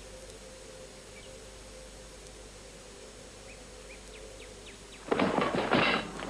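Faint steady hiss with a low hum, then about five seconds in a sudden loud burst of noise with several sharp hits, lasting about a second.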